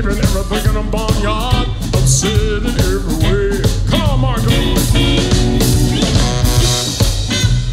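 Live blues band playing an instrumental break: a lead line bending and sliding between notes over electric bass and drums.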